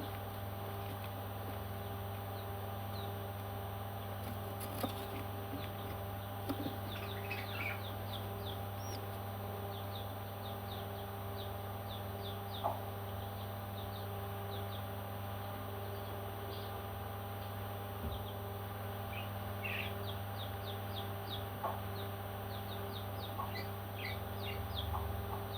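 Parrot chicks giving short, high chirps, in two quick runs of chirping, over a steady low hum.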